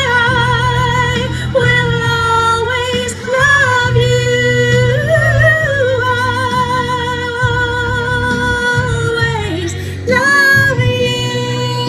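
A woman singing into a microphone through a PA speaker, holding long notes with vibrato over a low instrumental accompaniment; her voice slides down and breaks off briefly just before ten seconds in.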